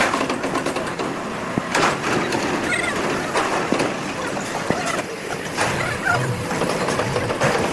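Heavy forging-shop machinery running, with repeated sharp metal clanks and knocks and short squeaks over a steady din.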